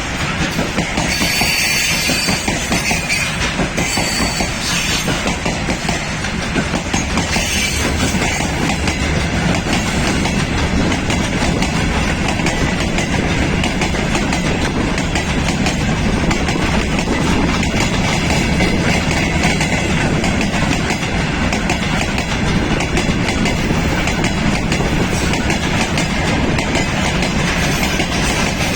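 A train hauled by a VL11.8 electric locomotive running on the rails, its wheels clattering in a steady, loud rumble, with brief high-pitched squeals in the first few seconds.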